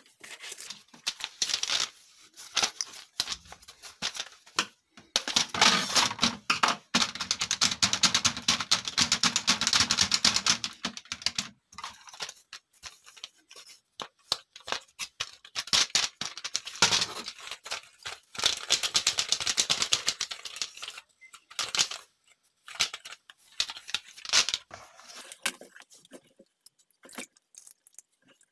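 Plastic keyboard keys and keycaps clicking and rattling as a keyboard is cleaned, with two longer stretches of dense scrubbing or scraping noise, the first starting about five seconds in and the second around the middle.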